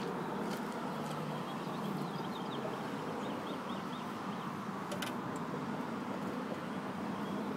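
Lawn-Boy self-propelled mower's two-stroke engine running steadily, with a short rattle about five seconds in as the grass bag is lifted off.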